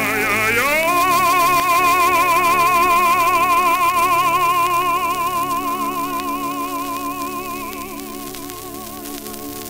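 Baritone with orchestra played from a 78 rpm shellac record, with surface crackle and hiss: the voice slides up during the first second into a long high note with steady vibrato, held for several seconds and fading away near the end.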